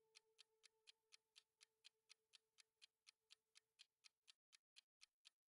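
Countdown-timer clock ticking, faint and evenly spaced at about four ticks a second.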